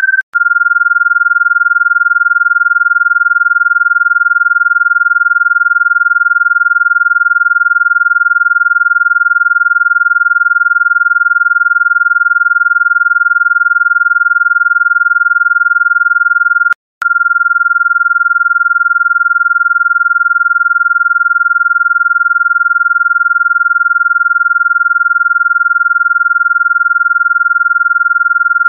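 Electronically generated Rife-frequency sine tone: one steady, high, pure pitch. It breaks off briefly just after the start, coming back a little lower, and drops out for a moment again about 17 seconds in.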